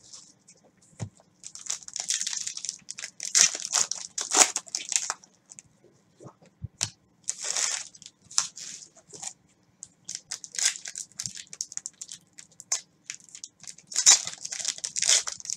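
Foil trading-card packs being torn open by hand, in repeated bursts of ripping and wrapper crinkling, with a few soft knocks between.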